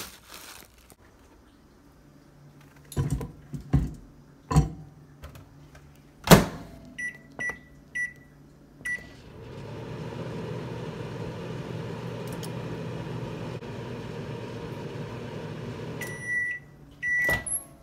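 Over-the-range microwave oven: a few knocks and a loud clunk, then four short keypad beeps as buttons are pressed, and the oven runs with a steady hum for about seven seconds. It finishes with two longer beeps and another clunk near the end.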